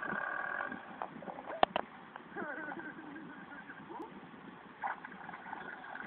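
Cartoon soundtrack heard from a TV speaker: comic sound effects and wordless character noises, with a sharp click about a second and a half in and wavering, falling squeaks soon after.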